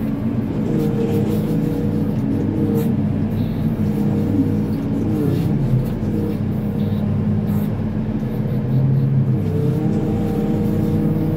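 Manitou MLT 737 telehandler's diesel engine running steadily, heard from inside the cab while it drives across the field with its bale grab. The engine pitch shifts slightly and rises briefly near the end.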